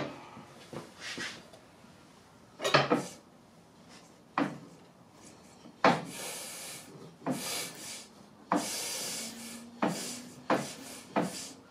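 Scattered knocks and clunks with two brief rubbing rushes, from the rear wheel of a Harley-Davidson Milwaukee-Eight being turned over by hand to bring the other cylinder onto cam overlap.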